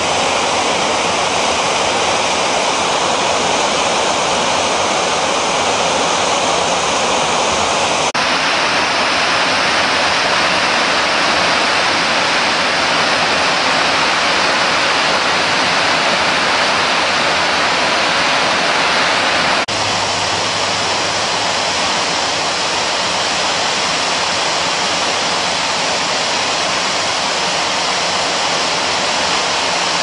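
Smith River rapids: fast water rushing over rocks in a steady, loud whitewater rush. The tone shifts abruptly twice, about a quarter and two-thirds of the way through.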